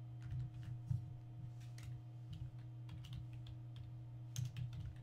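Computer keyboard typing: irregular keystrokes, some in quick runs, over a steady low hum.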